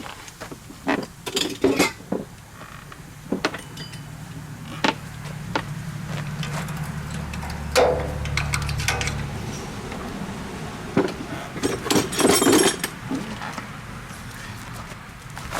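Irregular metallic clinks and knocks of hand tools and steel parts being handled, with a low steady hum for several seconds in the first half.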